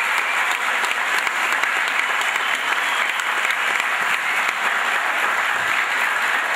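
Large crowd of children and adults applauding, a steady, dense clapping that neither builds nor fades.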